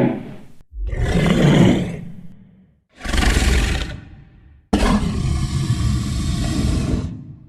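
Homemade Godzilla roar sound effects: the tail of one roar fades out, then three roars follow one after another. The last roar is long and steady, lasting about two and a half seconds before it fades.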